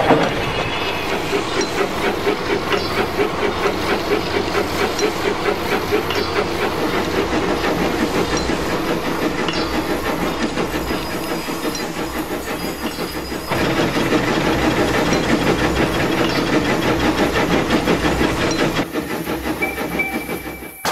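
Steam locomotive chuffing in a steady rhythm with hissing steam. About 13 seconds in it grows louder, and it dips near the end.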